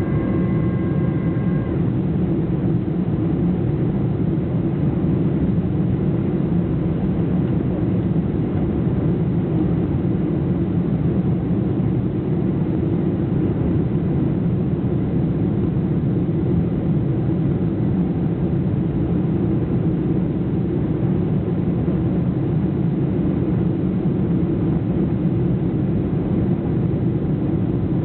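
Steady cabin noise of an airliner coming in to land: even engine and airflow noise, mostly low. A few faint steady tones sound with it and stop about two seconds in.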